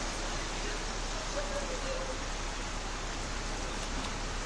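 Steady hiss of floodwater running across a flooded street.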